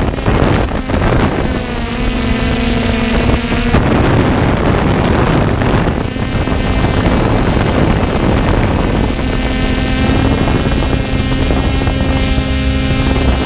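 Multirotor drone's propellers and motors whirring loudly, heard close up from the drone's own camera, mixed with wind buffeting the microphone. The motor hum changes pitch a few times as the drone adjusts.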